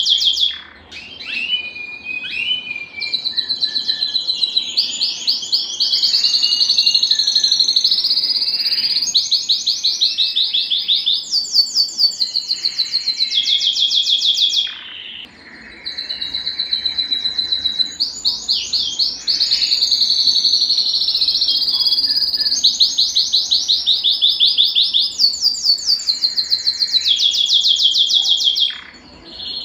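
A male domestic canary singing: long phrases of fast trills of rapidly repeated high notes, broken by brief pauses about a second in, midway through and near the end.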